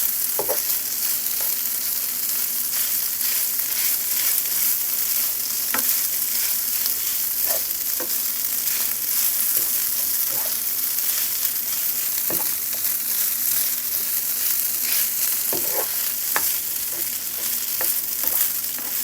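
Fried rice sizzling steadily in oil in a hot pan while it is stirred, with a dozen or so short scrapes and knocks from the stirring scattered through it.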